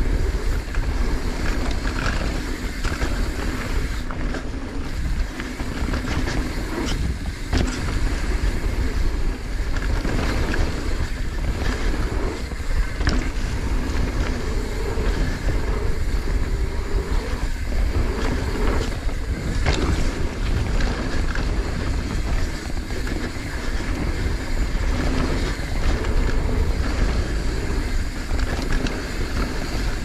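Mountain bike riding down a dirt trail: wind buffets the camera microphone over the steady noise of tyres on dirt. Frequent short rattles and knocks come from the bike over bumps.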